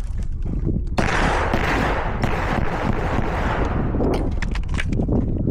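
A string of pistol shots fired in quick succession on a timed match stage, starting about a second in, with a short break about four seconds in.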